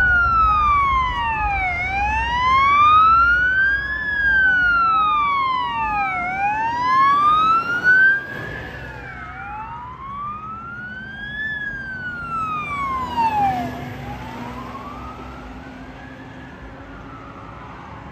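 Fire engine sirens wailing, more than one at once and out of step, each slowly rising and falling in pitch about every four seconds. The sirens fade over the second half, with a low engine hum as a fire engine passes.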